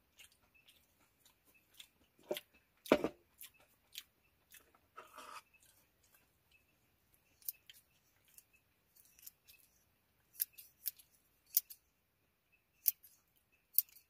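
Scattered light clicks and snips of a SOTO cookware pot-gripper handle being opened, closed and handled, with a louder knock about three seconds in and a short scrape about five seconds in.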